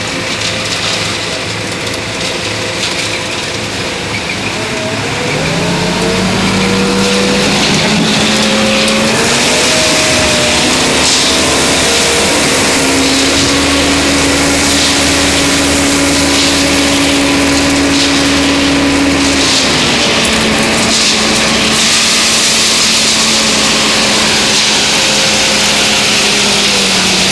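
Ajax 4000 self-loading concrete mixer's diesel engine running. About five seconds in it revs up, climbs higher and holds there while the hydraulic loader bucket digs into and lifts gravel, then settles to a lower but still raised speed near twenty seconds in.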